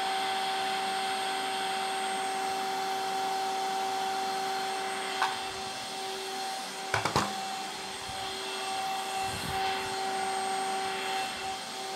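Shop vacuum or dust extractor running with a steady hum, with a few short clicks and knocks about five and seven seconds in.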